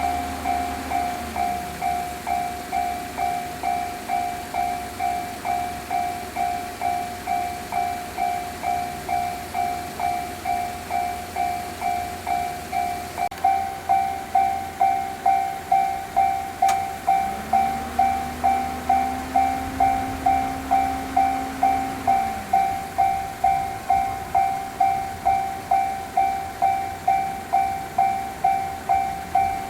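Railway level-crossing alarm ringing its electronic bell steadily, about two and a half strikes a second, louder from about halfway. Midway a train passes with a low rumble and a low motor whine that rises, holds and falls away.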